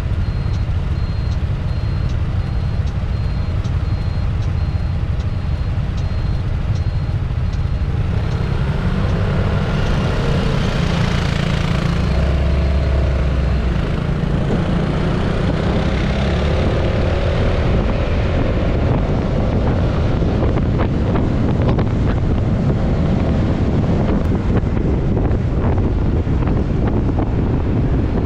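Motor scooter engine running at a standstill with a light regular ticking, then pulling away about nine seconds in and accelerating, other scooters around it; as speed builds, wind noise on the microphone takes over.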